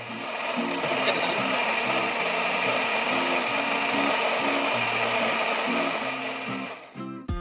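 Small electric blender running steadily, grinding red chilies, shallots and garlic with a little water into a spice paste. The whir builds up over the first second and cuts off about a second before the end, with acoustic guitar music playing faintly underneath.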